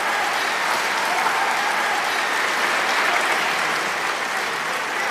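Audience applauding, a dense steady clapping that sets in just before and carries on throughout.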